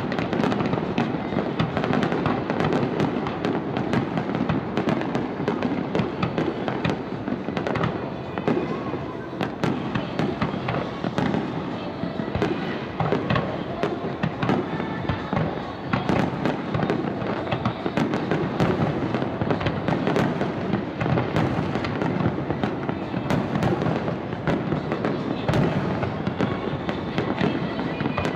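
Large aerial fireworks display: a continuous barrage of bangs and crackling as many shells burst in quick succession.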